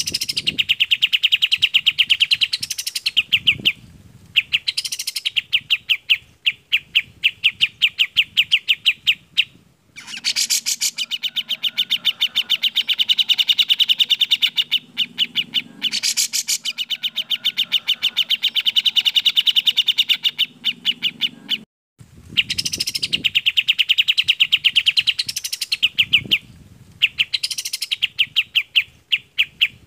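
Cage songbird singing a fast chattering run of short repeated notes, about ten a second, broken every couple of seconds by a high rising note. The song stops briefly a few times where recordings are joined.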